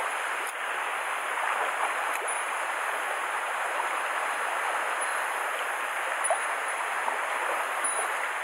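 Mountain stream water rushing and splashing over rocks, a steady, even rush.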